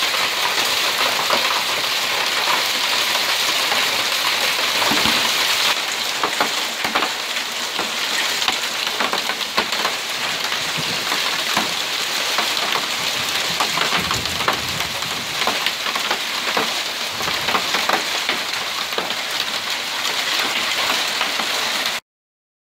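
Heavy hailstorm: small-to-medium hailstones and rain pelting terracotta roof tiles and paving, a dense steady hiss full of sharp individual ticks. It eases slightly about six seconds in and stops abruptly near the end.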